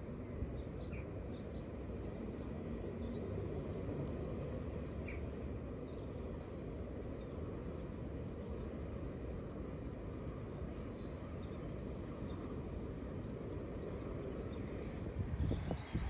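Outdoor ambience: a steady low rumble with a few faint bird chirps now and then. Louder uneven low rumbling comes in near the end.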